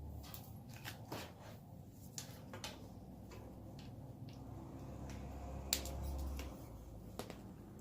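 Irregular light clicks and knocks over a low steady hum, with the sharpest click a little before six seconds in.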